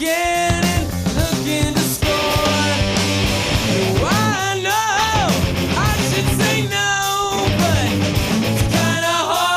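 Rock song with sung vocals, guitar, bass and drums.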